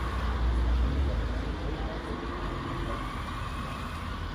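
Radio-controlled model truck's small electric motor whining up and down in pitch as it drives, over steady background noise. A low rumble is loudest in the first second.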